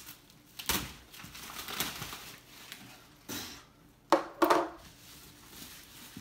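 Black plastic bag wrapping a large cardboard box rustling and tearing as it is pulled off by hand, in several short bursts, the loudest about four seconds in.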